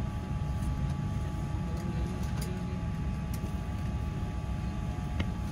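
Steady low rumble of a Boeing 787-9 airliner's cabin, with faint steady tones over it. A few faint clicks are heard, about two, three and five seconds in.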